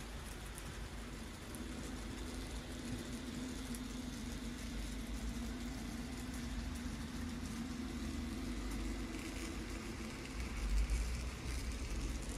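N gauge Graham Farish Class 66 model locomotive running with a long train of model wagons, a steady motor hum with light clicking of small wheels on the track, growing a little louder as the train passes close. A brief low bump near the end.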